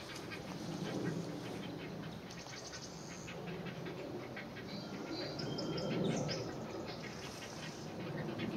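Great blue heron nestlings calling at the nest with rapid clacking calls and lower, uneven croaking sounds. Short higher bird chirps come in around the middle.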